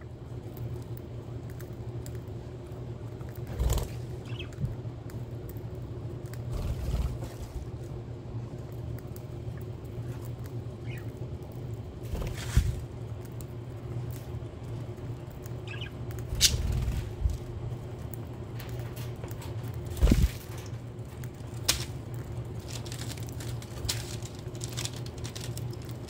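Budgerigar aviary ambience: a steady low hum with scattered knocks and rustles, and a few faint, short budgie chirps.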